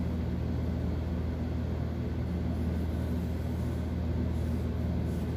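A steady low mechanical hum that holds an even pitch and level throughout.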